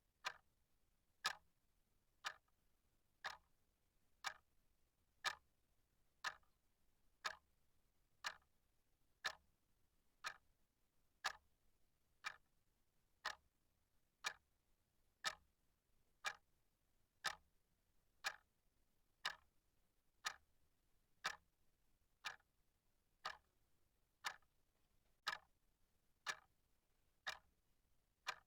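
Clock ticking steadily, one faint, sharp tick about every second.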